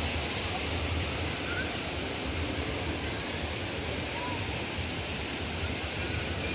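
Waterfall: a steady rush of falling water, with a low rumble underneath.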